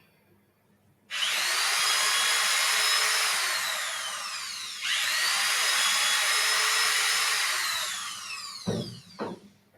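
Electric drill enlarging holes in a robot head part: two long runs of the motor, the whine sliding down as it spins down after each. Two short knocks follow near the end.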